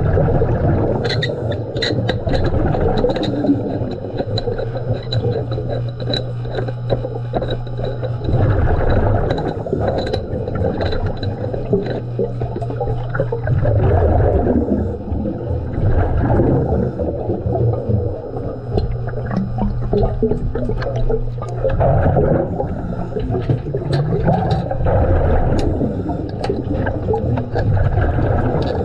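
Underwater diving sounds: a diver's exhaled air bubbling and gurgling, over a steady low hum that drops out for a stretch in the middle, with scattered small knocks and clicks.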